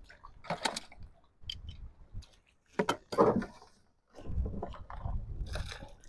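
Close handling noise: irregular clicks, knocks and scrapes, with low rumbling between them, as live crabs are wrestled with.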